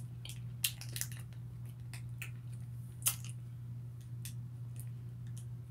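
A small clear plastic packet crinkling and crackling as it is handled and bitten at, in a string of short sharp crackles, the sharpest about three seconds in, over a steady low hum.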